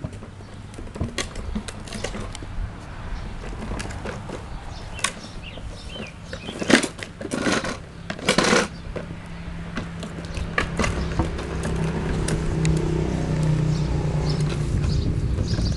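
Plastic toy tricycle rolling, its hard plastic wheels and frame clicking and clattering, with a few louder clatters in the middle. A steady low drone comes in about ten seconds in and grows louder.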